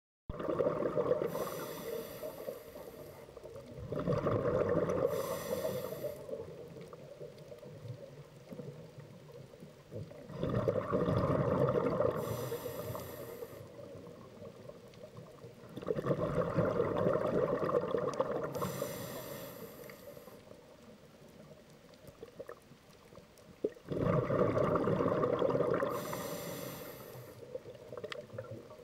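Scuba diver breathing through a regulator underwater: five slow breaths about six seconds apart, each with a hissing inhale and a rush of exhaled bubbles.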